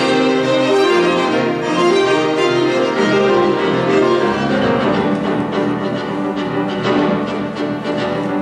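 A chamber trio of violin, saxophone and piano playing together, with sustained, overlapping melodic lines.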